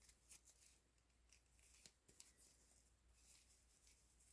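Near silence with faint, scattered soft rustles and ticks of a doll wig being unrolled and handled onto a small doll's head.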